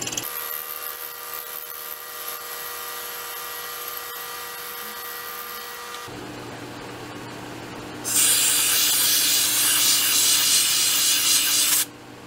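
A milling machine cutting metal. The spindle and cutter run with a steady whine of several tones, then about eight seconds in a louder hissing rasp of cutting starts and stops abruptly near the end.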